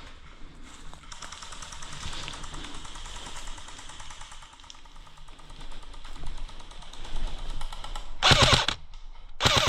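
Airsoft guns firing long strings of rapid automatic shots, followed near the end by two much louder short bursts.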